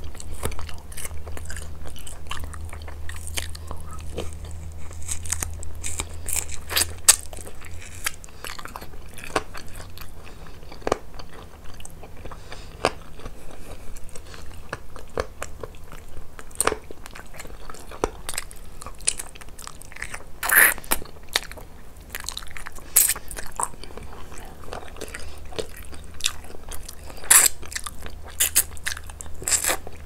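Close-miked chewing and biting while eating chicken and rice: irregular wet smacks and clicks, with a few louder bites in the second half. A steady low hum runs underneath.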